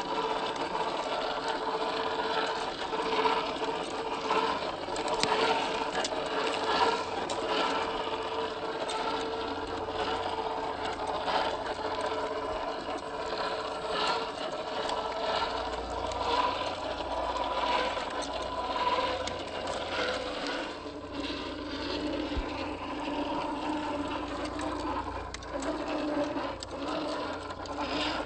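1/10-scale RC crawler's electric motor and geared drivetrain whining steadily as it drives, with scattered clicks throughout. About two-thirds of the way through, the whine drops to a lower pitch.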